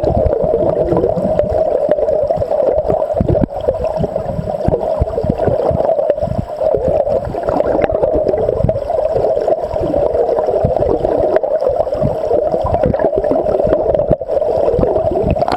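Shallow gravel-bed river current heard underwater: a steady gurgling rush with frequent irregular low thuds.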